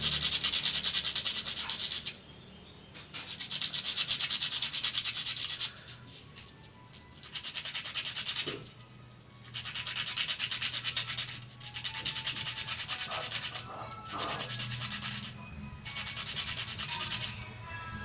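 A steel wire fish-spear dart rubbed fast back and forth on a piece of sandpaper to grind its tip sharp: a rapid scraping in runs of one to a few seconds, broken by short pauses.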